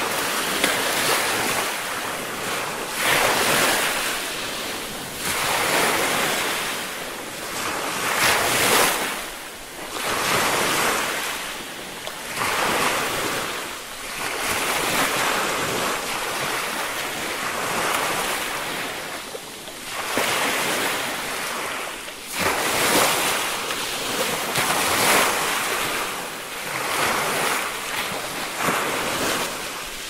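Small ocean waves breaking and washing up a sandy beach: a rush of surf that swells and falls back every two to three seconds.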